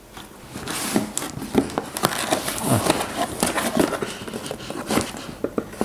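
Cardboard box being opened: a knife cutting through packing tape, then the flaps scraping and crackling as they are pulled open, a string of short, irregular crackles and scrapes.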